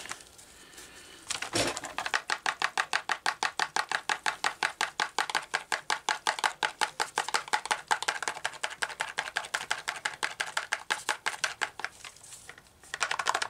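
Homelite XL chainsaw oil tank being shaken hard in quick, even strokes, about seven a second, with a little mixed fuel sloshing inside. The fuel is a solvent meant to loosen the rotted duckbill valve and free its broken-off pickup tube from the bottom of the tank. The shaking pauses briefly near the end.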